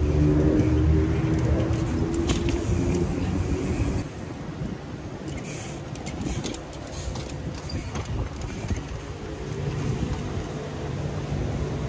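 Traffic: a motor vehicle's low engine hum, loud for the first four seconds and then dropping away, returning fainter near the end. Scattered sharp clicks and knocks from a trial bike hopping and landing on a brick wall.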